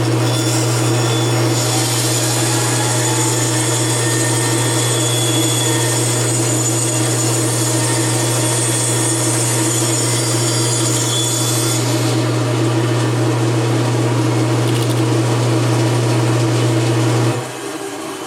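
Bandsaw running with a steady motor hum while its blade cuts through wood, about ten seconds of high-pitched cutting noise. The cutting stops about two-thirds of the way through, and the hum cuts off near the end.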